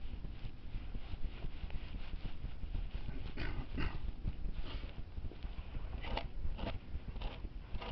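Boots treading and tamping down dry grass and soil: a series of crunching steps, more distinct in the second half, roughly half a second apart.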